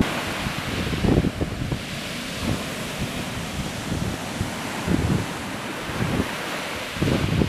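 Sea surf breaking and washing up a sand beach among rocks, a steady rushing wash, with wind buffeting the microphone in gusts.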